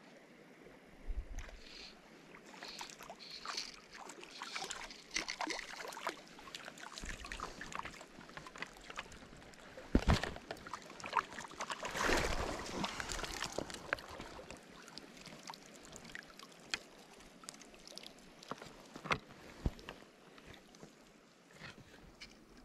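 Water splashing and sloshing in a shallow, stony creek, over a steady trickle, with scattered sharp clicks and knocks; the loudest splashes come about ten and twelve seconds in.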